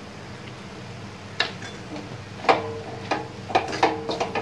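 Wooden spatula scraping and knocking against a steel kadai while stirring sautéed greens, starting about a second and a half in with several quick strokes. The pan rings briefly after the sharper knocks.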